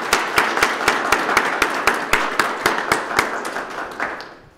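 Applause from a small audience, with loud, regular hand claps close by, about five a second, standing out above it; it dies away about four seconds in.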